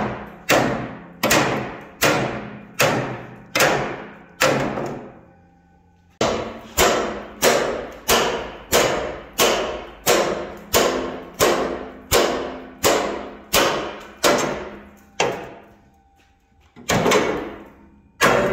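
Hammer blows on a steel truck frame rail and liner, about three strikes every two seconds, each with a short metallic ring. They come in two long runs with a pause between, then a few more strikes near the end, knocking loose the rust jacking packed between liner and frame.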